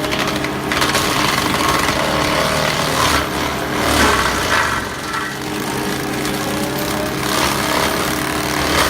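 Excavator with a forestry mulching head running: a steady engine drone under rough grinding surges that come and go several times.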